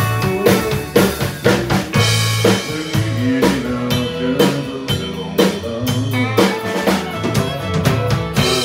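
Live country band playing an instrumental passage without vocals: a drum kit keeps a steady beat under fiddle, acoustic guitar and electric bass.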